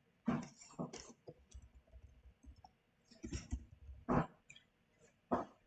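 Computer keyboard keys being typed: an irregular run of short clicks in small clusters, with pauses between them.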